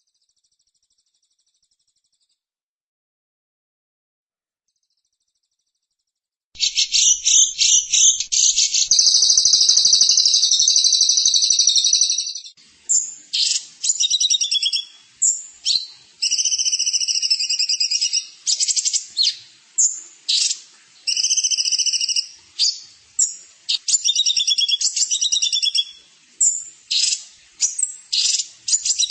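Silence, then about six seconds in a songbird starts singing loudly. It opens with a rapid trill, holds a buzzy run for a few seconds, then goes on in quick, varied chattering and whistled phrases with short breaks between them.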